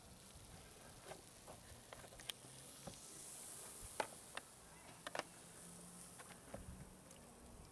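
Faint, scattered clicks and scrapes of a knife blade prodding the thin aluminium fins of a car heater core: a few sharp ticks now and then, with a close pair about five seconds in.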